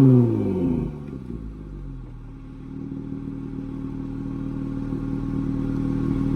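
Dodge Charger GT's V6 exhaust through dual Flowmaster 40 mufflers: the engine note falls away as a rev ends in the first second, then settles into a steady low drone that slowly grows louder.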